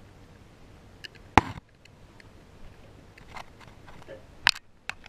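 Camera handling noise: a few sharp knocks and clicks, the loudest about a second and a half in and another about four and a half seconds in.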